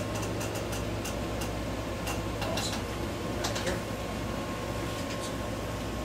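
Steady low room hum with a few faint, scattered clicks and rustles from hands, clothing and the treatment table as the patient's legs are handled. No loud joint crack.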